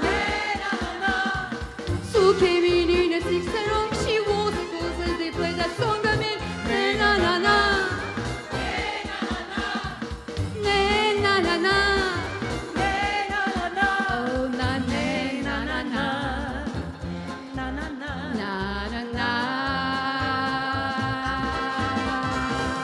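A live pop song: a woman singing lead over a choir with Korg keyboard accompaniment. Near the end the melody gives way to long held chords.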